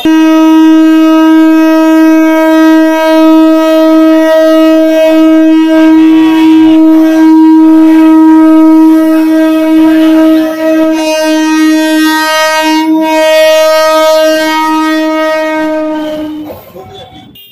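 An EMU local train's horn sounds one long, loud single-note blast as the train moves off. It wavers briefly about ten seconds in, then carries on until it fades out near the end.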